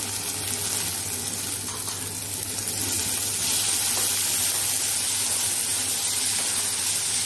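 Sliced onions and tomato wedges sizzling in hot oil in a nonstick kadai while being stirred with a wooden spatula. The sizzle grows a little louder about three seconds in.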